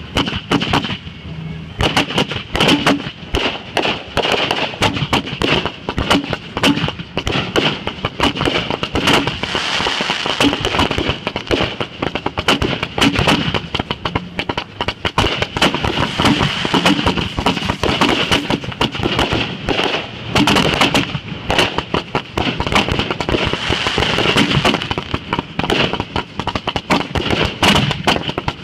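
Fireworks going off in a dense, continuous barrage of bangs and crackles, with hardly a pause between reports.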